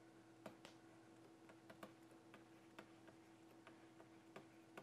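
Faint, irregular clicks and taps of a pen stylus on a tablet during handwriting, over a faint steady hum.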